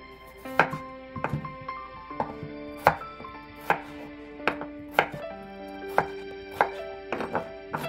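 Large kitchen knife cutting peeled raw potatoes into chunks on a wooden cutting board: a dozen or so sharp knocks of the blade on the board, roughly one every half-second to second, over soft background music.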